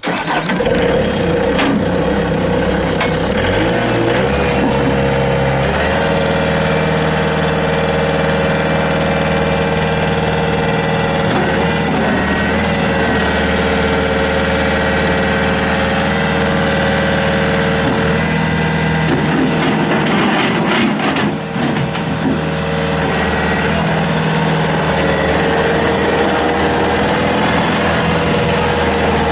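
Bobcat S250 skid steer's Kubota turbo diesel starting up and running; its pitch climbs in steps over the first few seconds, then holds steady with a steady whine over the engine.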